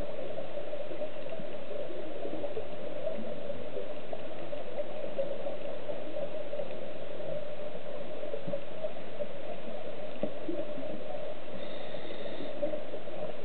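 Steady underwater ambience picked up by the submerged camera: a constant hum-like noise with faint gurgling. A brief high tone sounds for under a second near the end.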